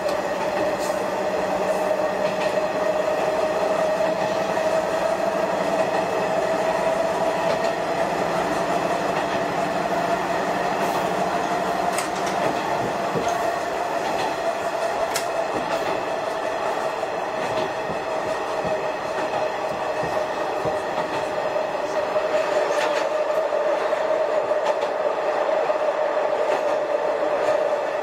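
Shigaraki Kohgen Railway SKR500 diesel railcar running along the line, heard from on board: a steady whine that rises a little, then eases off, with a few sharp clicks.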